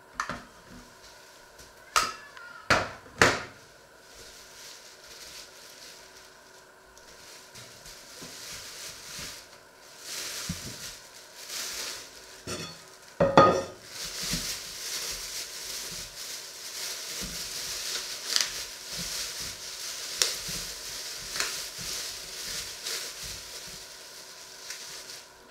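A few sharp knocks of dishware being moved and set down on a wooden worktop, one louder knock about halfway through. After that, a thin plastic bag crinkles and rustles steadily as it is handled.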